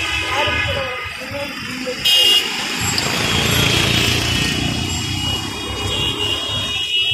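Road traffic at a busy intersection: engines and tyres of passing cars. A short vehicle-horn honk comes about two seconds in, and a heavier engine rumble follows as a vehicle passes close.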